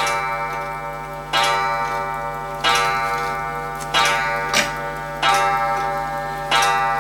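Background music: a held, ringing chord struck six times at an even pace, about every 1.3 seconds, each fading slowly until the next.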